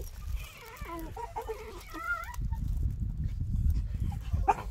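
Ten-week-old miniature pinscher puppies whimpering in short, wavering high whines over the first couple of seconds: cold puppies unhappy at being made to stay outside. A low rumbling noise fills the second half, with a single click near the end.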